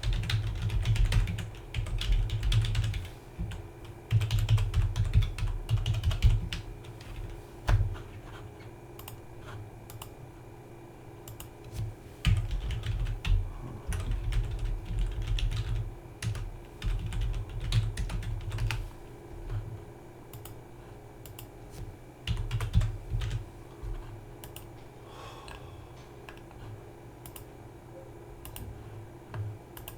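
Typing on a computer keyboard in quick bursts of a few seconds with short pauses between them, over a faint steady hum.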